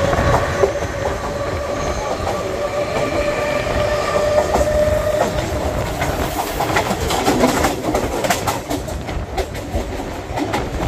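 Mumbai suburban electric local train running at speed, heard from its open doorway: a steady rumble with a whine in the first half that fades about halfway. In the second half come many rapid clicks and knocks from the wheels on the track.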